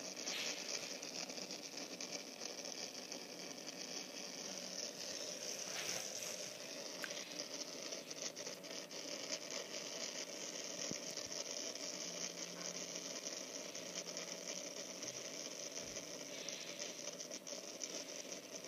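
Steady, even hiss.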